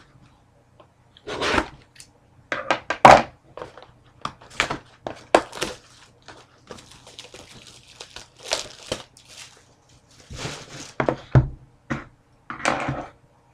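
A sealed box of trading cards being opened by hand: plastic wrapping crinkling and tearing, with irregular thunks and knocks of the cardboard box being handled.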